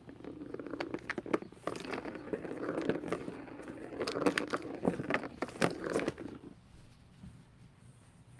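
A cat playing with a toy: irregular taps, clicks and rustling, dying away about six and a half seconds in.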